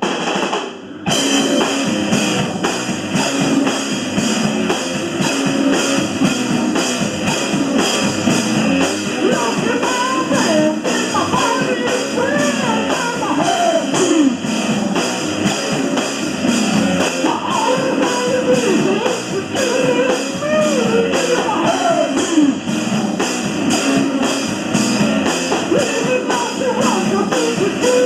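Live rock band playing loud, with drum kit and guitars. The sound cuts out briefly about a second in, then the full band comes back in. From about ten seconds in, a melodic line bends in pitch over the top.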